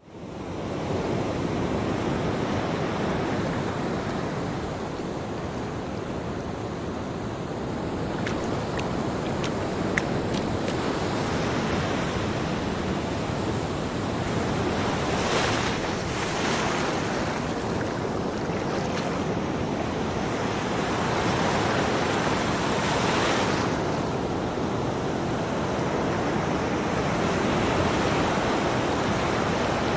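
Ocean surf washing onto a beach, fading in at the start; a steady rush of water with a couple of louder hissing swells as waves break and wash up, one in the middle and one about three quarters of the way through.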